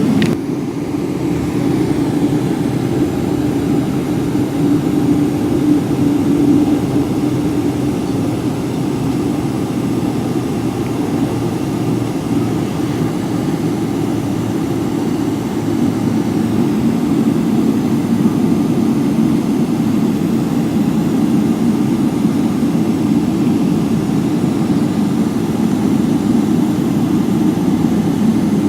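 Steady low drone inside the cabin of a Boeing 777-300ER, its GE90 jet engines running at low thrust.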